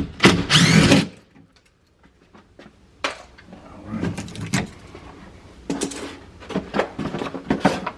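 Handling noise from tools and parts: a loud scraping rasp near the start, then a short pause, then assorted clicks, taps and rattles.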